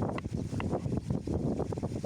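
Wind buffeting the microphone over running water, with an uneven low rumble and scattered small crackles.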